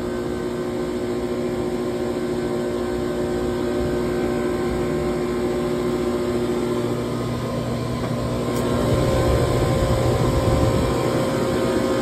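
Trane air-cooled chiller running, its compressors and condenser fans making a steady hum with several constant tones. About two thirds of the way through, the higher tones drop away and a lower rumble grows, with one short click.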